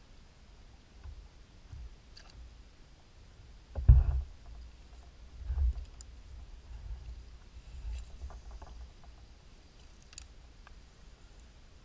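Low thumps and bumps on a fishing kayak as the angler shifts and handles the rod, the loudest about four seconds in and another a second and a half later, with scattered light clicks from the tackle.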